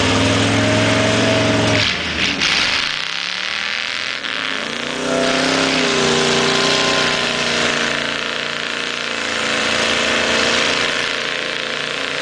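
Old pickup truck engine running under load and revving as the truck ploughs through deep mud, its pitch rising and falling. For a couple of seconds near the start the engine note fades under a hiss of noise.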